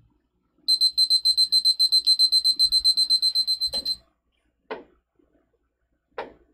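Countdown timer on an interactive whiteboard sounding its alarm on reaching zero: a loud, high-pitched, rapid beeping, about nine beeps a second for about three seconds, stopped with a click. Two short knocks follow.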